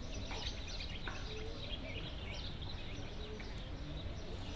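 Ambience of small birds chirping many times in short calls, over a steady low rumble.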